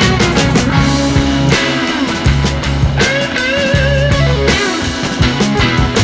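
Background rock music with guitar, bass and drums, a wavering lead line standing out in the middle.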